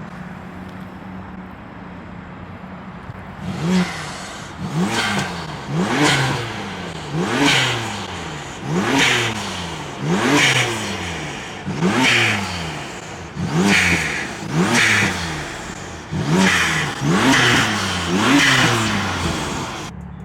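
Car engine idling, then blipped over and over from a few seconds in: the pitch jumps up sharply and falls back about every one and a half seconds. The sound cuts off suddenly near the end.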